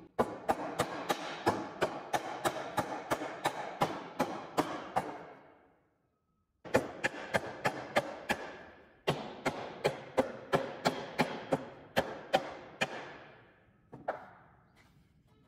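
Rubber mallet knocking the panels of a wooden stool together, about three even blows a second, each trailing off in a short echo. The blows come in two runs with a brief break between them.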